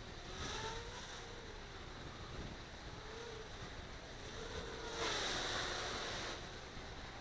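Small quadcopter's motors whining at a distance, the pitch wavering up and down as it holds against gusty wind. Wind rushes throughout, with a louder stretch of rushing about five seconds in.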